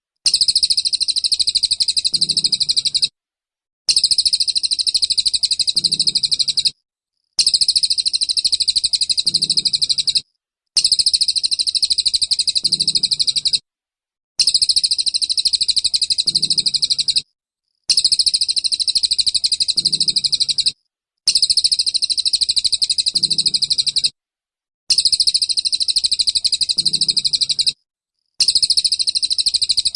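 Songbird 'tembakan' song: high-pitched bursts of very fast repeated notes, each about three seconds long, repeated nine times with short silent breaks between them, as in a looped bird-training (masteran) recording.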